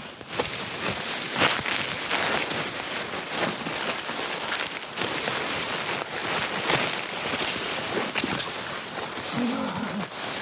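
Crumpled tissue paper crinkling and rustling right against the microphone, a dense, unbroken crackle, as kittens play in a pit of it.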